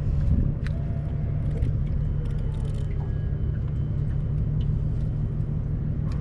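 Steady low rumble with a few light ticks and knocks.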